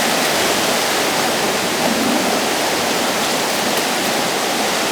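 Steady rushing wind, an even hiss with no break.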